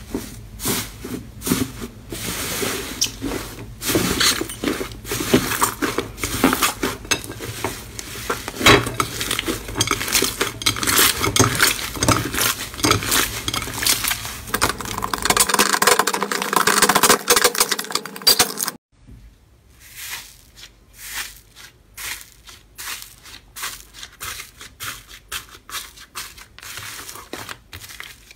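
Hands pressing, squeezing and stretching slime: dense, loud crackling with many small clicks. About two-thirds of the way through it cuts to quieter, sparser crackles and clicks.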